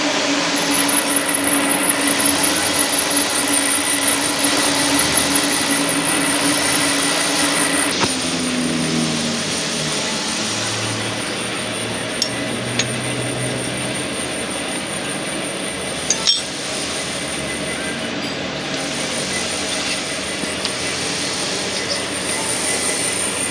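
Machine-shop machinery running with a steady motor hum; about 8 seconds in, one motor's pitch falls as it slows down. A few sharp metal clinks follow.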